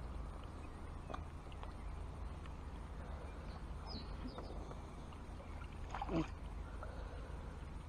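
Water splashing and lapping at the pond's edge as a released mirror carp swims away, with one louder splash about six seconds in, over a steady low rumble.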